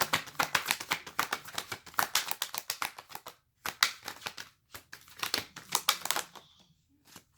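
A deck of Romance Angels oracle cards being shuffled by hand: a fast run of dry card clicks and flicks, broken by two short pauses and dying away near the end.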